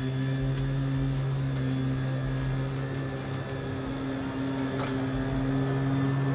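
Battery-electric push lawn mower running steadily as it cuts grass: an even motor-and-blade hum, with a few brief ticks.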